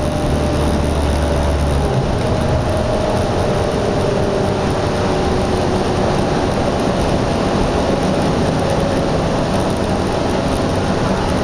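Steady, loud din of highway traffic, with a low engine hum that drops away about two seconds in.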